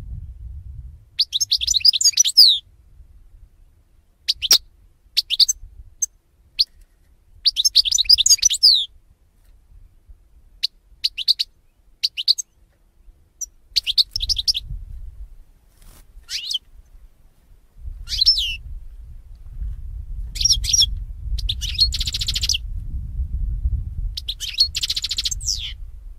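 European goldfinch singing: short bursts of rapid, high twittering with pauses between, the phrases growing longer near the end. A low background rumble runs beneath the second half.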